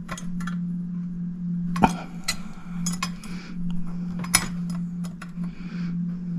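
Light metallic clicks and clinks of small clock parts and a screwdriver being handled during disassembly of a clock, with a sharper knock about two seconds in and another about four seconds in. A steady low hum runs underneath.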